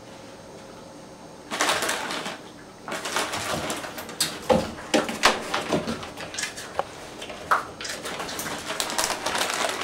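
Wire dog playpen rattling and clanking as a Shiba Inu scrambles up its side and over the top rail, with irregular knocks and scraping starting about a second and a half in.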